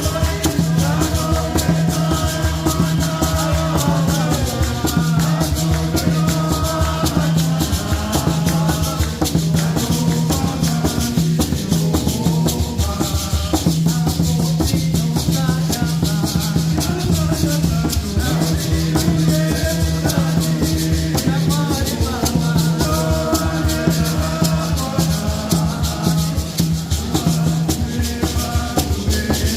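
Music with a fast rattle rhythm over a repeating bass note and a melody line.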